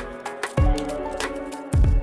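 Background music with a steady beat: heavy bass drum hits roughly once a second, with crisp percussion and held notes between them.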